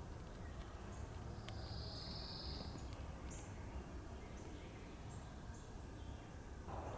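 Woodland ambience: a steady low rumble under scattered short, high songbird chirps, with a high buzzing call lasting about a second, starting about one and a half seconds in.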